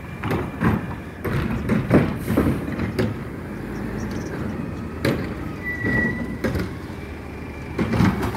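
Automated side-loader garbage truck running down the street, with a low rumble and a string of irregular clunks and thumps, one short high squeal about six seconds in, and more clunks near the end as its arm lifts a recycling cart.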